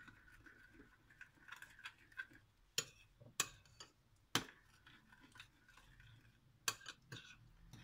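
Spoon stirring yeast in a small glass bowl, faint, with scattered light clicks and four sharper clinks of the spoon against the glass.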